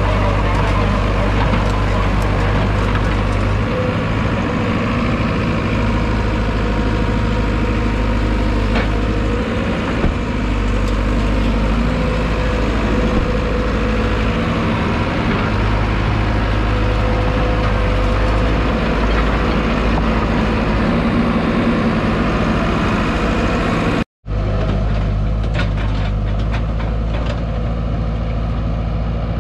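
Cat E120B excavator's diesel engine running steadily while the machine moves and works. The sound drops out for an instant about 24 seconds in, then the engine carries on.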